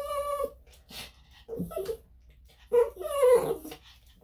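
Small dog, a senior Maltese/Shih-Tzu cross, whining and whimpering in a few high, pitched cries. The longest and loudest cry, about three seconds in, falls in pitch.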